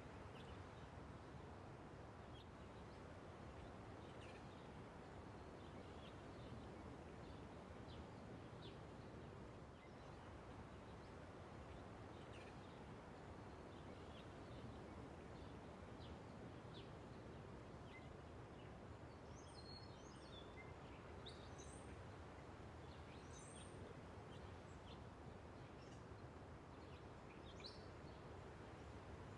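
Near silence: faint outdoor ambience, a steady low hiss with scattered faint bird chirps throughout, a few more of them clustered just past the middle.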